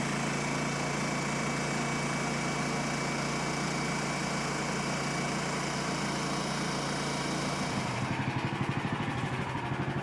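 Portable band sawmill's gasoline engine running steadily. About eight seconds in, its sound takes on a fast, pulsing beat.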